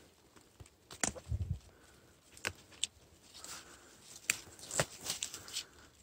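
Dry stems and dead leaves rustling in undergrowth, broken by several sharp twig snaps and crackles spread irregularly, with a dull thud just after a second in.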